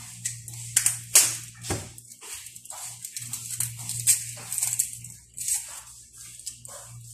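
Dry papery skin of a red onion crackling and rustling as it is peeled with a kitchen knife, in short irregular scratches, over a faint steady low hum.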